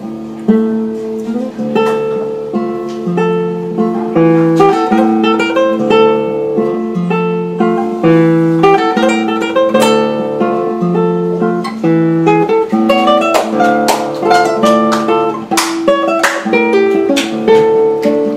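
Classical guitar played fingerstyle in a Spanish style: plucked melody notes over a repeating bass line, with some sharper strummed chords in the second half.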